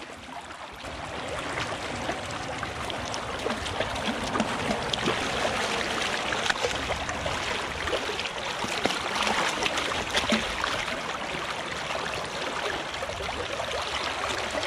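Hooked pink salmon thrashing at the surface of a shallow creek as it is grabbed by hand, many irregular splashes over the steady rush of flowing creek water. The splashing grows louder about a second in.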